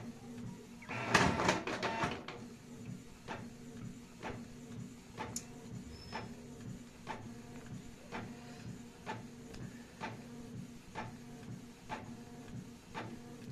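Canon Pixma G3012 ink-tank inkjet printer printing: a louder clatter about a second in, then a steady motor hum with regular clicks about twice a second as the pages go through.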